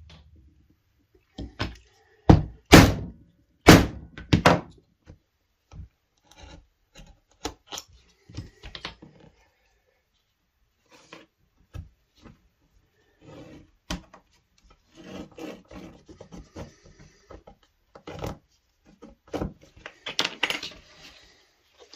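Hand work on a wooden surface, likely leatherworking for a lighter sheath. A few loud knocks come about two to four and a half seconds in, followed by scattered lighter taps and clicks, and a stretch of rubbing near the end.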